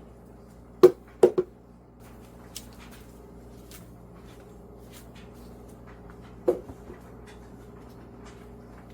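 Three sharp knocks about a second in, and another with a couple of fainter taps near six and a half seconds, over a steady low hum.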